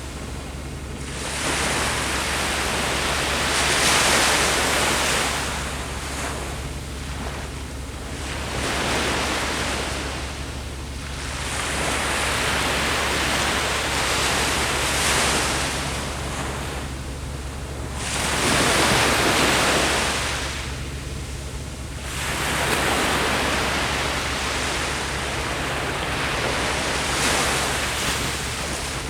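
Ocean waves breaking on a shore, the surf swelling and falling back every few seconds.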